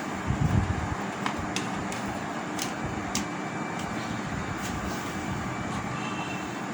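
Steady background hum and hiss, like a fan or air conditioner running, with a few faint light clicks.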